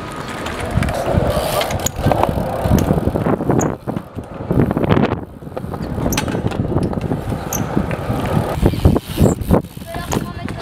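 BMX bike riding on concrete skatepark ramps and a bowl: tyres rolling, with a series of sharp knocks and clatters as the bike hits ramps and lands jumps.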